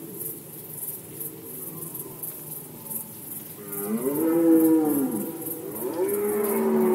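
Red deer stags roaring in the rut. A rougher, fainter roaring comes first. About four seconds in, a loud, long bellow rises and falls in pitch, and a second roar begins near the end.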